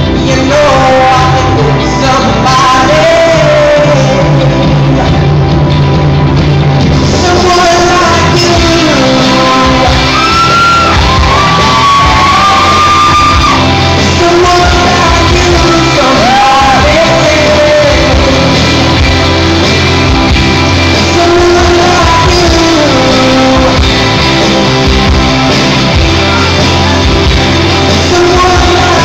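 A male singer singing into a microphone over loud backing music, amplified in a large hall.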